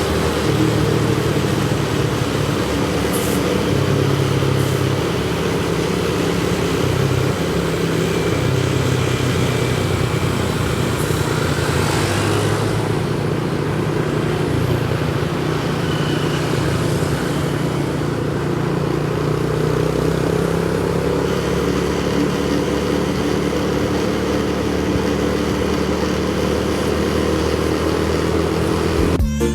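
Road vehicle engine running steadily amid traffic noise, a low even rumble with a brief swell of noise about twelve seconds in.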